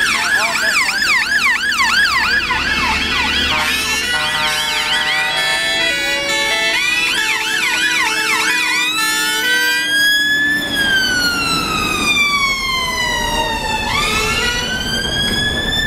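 Fire engine siren cycling through its modes. It starts with a fast yelp, changes a few seconds in to a stepped high-low two-tone, and near the middle goes to a slow wail that falls, rises again and falls.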